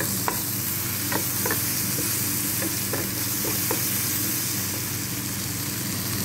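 Sliced cabbage, onion and bell peppers sizzling in oil in a non-stick frying pan, with a steady hiss, while a wooden spatula stirs them and scrapes and taps against the pan every second or so.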